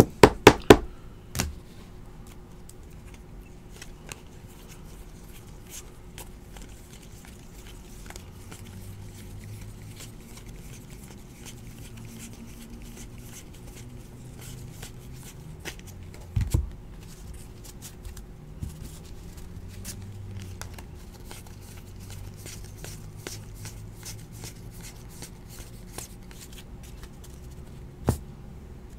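Stacks of Donruss basketball trading cards being flipped and slid through the hands: a soft, dry rustle with light ticks of card on card. There are a few sharp clicks in the first second or so, and single knocks about halfway through and near the end, as cards or a plastic holder are set down on the table.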